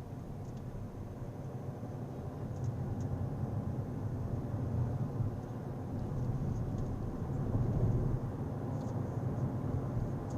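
A car's steady low rumble of engine and road noise, swelling louder through the middle and easing near the end, with faint small ticks.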